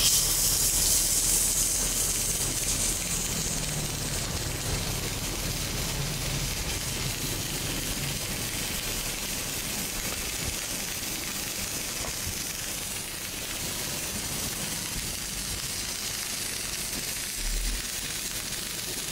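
Electric arc welding: the arc strikes suddenly and then burns with a steady crackling hiss. There is a short low bump near the end.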